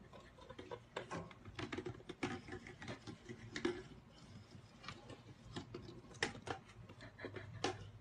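Light, irregular clicking and tapping of a small plastic baby bottle knocking and scraping on a wooden floor as a hamster pushes it along.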